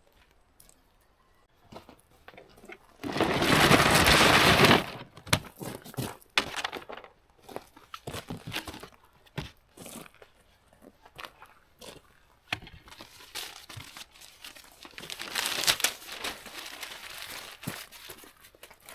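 Paper being crumpled and torn by hand to start a campfire, with two louder spells of rustling: about three seconds in, and again about two-thirds of the way through.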